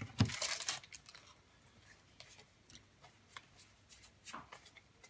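Foil wrapper of a Pokémon booster pack crinkling as it is handled and opened, most of it in the first second, then only a few faint rustles and ticks.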